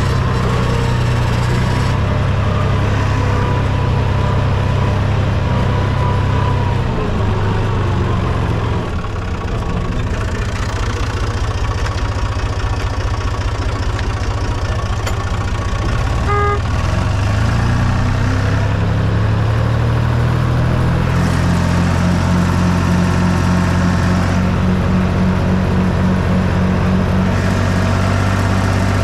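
Fiat Someca 500 tractor's diesel engine running steadily while pulling a plough through soil; the revs sag about a quarter of the way in and climb again a little past halfway.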